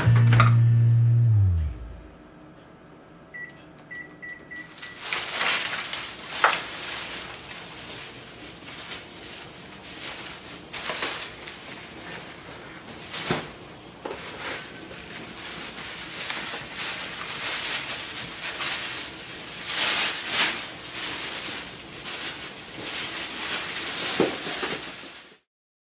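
An electronic household appliance beeps three short times. Then comes about twenty seconds of irregular household work noise, rustling and rubbing with a few sharp clicks and knocks, which cuts off suddenly near the end.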